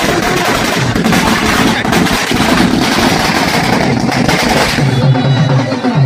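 Firecrackers going off in rapid succession, a loud, dense crackle of bangs. Band music comes through more clearly under them near the end.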